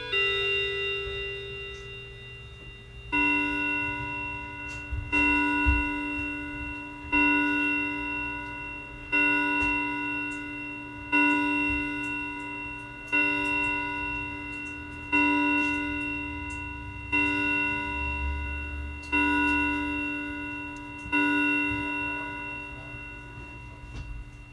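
Hermle striking clock: the end of its chime tune rings out, then the hour is struck ten times on its chime rod, evenly about two seconds apart, each strike ringing and slowly fading.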